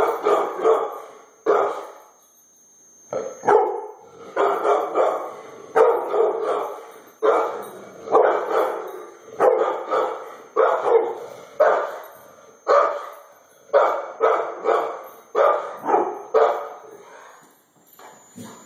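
Pit bull barking at a doorbell in loud, repeated volleys, a burst about every second, with a short pause about two seconds in. The barking tails off near the end.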